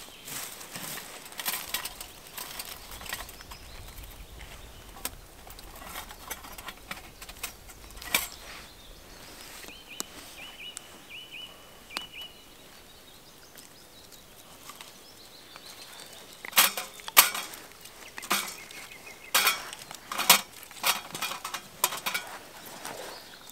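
Clinks and knocks of a Bushcraft Essentials folding metal bushbox stove being handled and set on the forest floor, then louder sharp cracks and knocks as twigs are loaded into it. A small bird chirps a quick run of short notes about ten seconds in.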